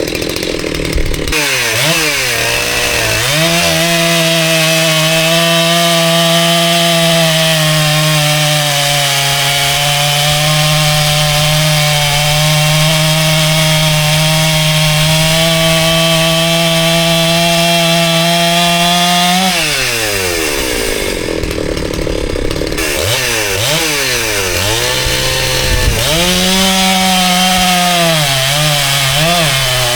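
Husqvarna 365 Special two-stroke chainsaw on a test cut: it revs up and holds steady high revs in the wood for about sixteen seconds, drops back, then is blipped up and down a few times before going back to steady high revs.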